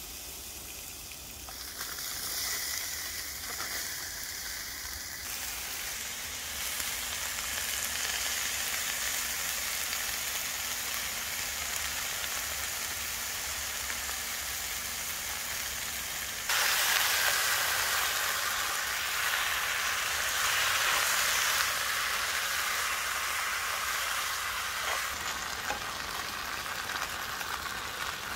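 Chicken and vegetables sizzling as they fry in a pan on a portable gas stove. The sizzle is steady and gets suddenly louder a little past halfway through.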